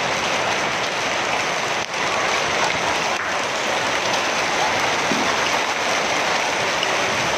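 Hail falling with rain: a dense, steady patter of hailstones striking surfaces.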